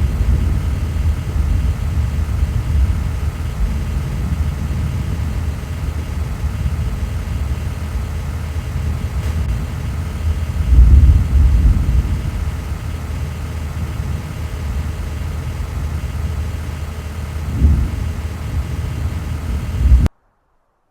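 Low rumbling noise, steady with louder surges about 11 and 17 seconds in, cutting off suddenly just before the end.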